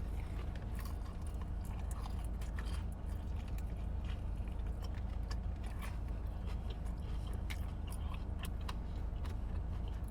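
Close-miked chewing and biting of bone-in chicken wings: many small irregular clicks and smacks over a steady low hum.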